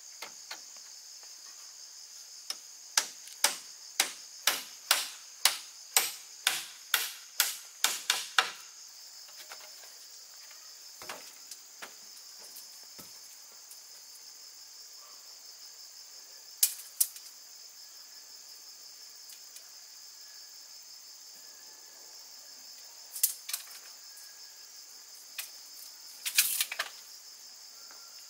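Steady high-pitched chorus of crickets, with a run of about a dozen sharp knocks at roughly two a second a few seconds in, then a handful of scattered single knocks.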